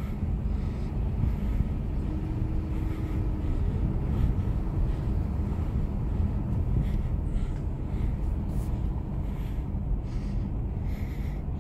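Wind rumbling steadily against the microphone of a handheld phone.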